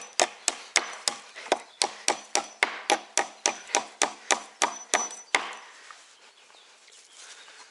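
A hammer driving nails into wooden pallet boards: rapid, even blows at about four a second with a light metallic ring. The hammering stops about five seconds in.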